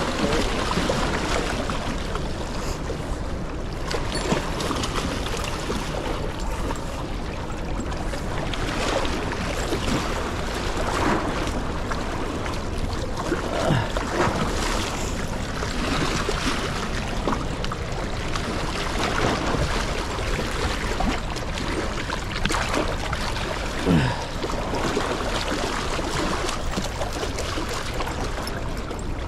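Steady rushing of water below a dam.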